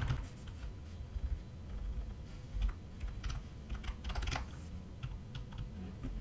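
Typing on a computer keyboard: scattered keystrokes in short runs with pauses between them, as text is deleted and retyped.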